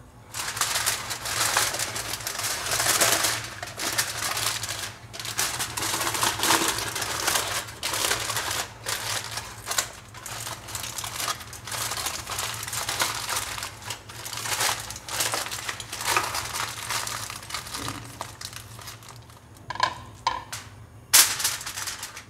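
Aluminium foil crinkling and rustling in irregular bursts as it is folded and pressed tightly around pieces of fish. Near the end the rustling dies down into a few short clicks and one sharp click.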